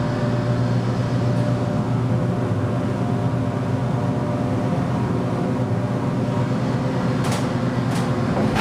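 Elevator car travelling between floors: a steady low hum of the moving cab with a few faint steady tones, and a couple of short clicks near the end as it nears the floor.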